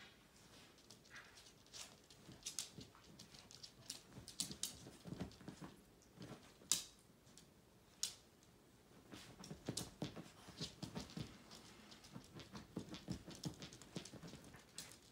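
Faint, irregular clicks with soft rustling and light thuds from a small dog moving about in a plush pet bed, coming in clusters with brief lulls.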